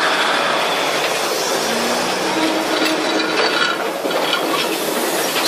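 Train rolling slowly past at close range: a steady rumble of wheels and carriages, with clinks and rattles about three to four seconds in.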